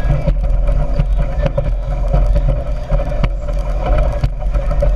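Speedboat running at speed: a steady engine drone over a heavy low rumble, with frequent sharp knocks.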